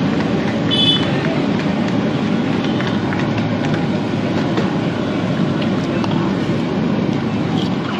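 Steady low roar of busy street-stall background noise, with a brief high-pitched tone about a second in.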